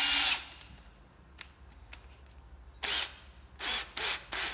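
Hitachi 12 V cordless drill's motor running, then stopping just after the start; from about three seconds in, about five short trigger bursts, each spinning up and down quickly, as the 13 mm chuck is worked by hand.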